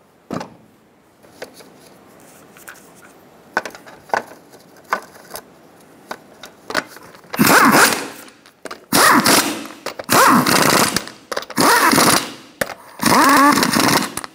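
Snap-on impact wrench spinning lug nuts onto a wheel hub in about five short bursts of roughly a second each, snugging the nuts down. Light clicks and knocks come before it, in the first half.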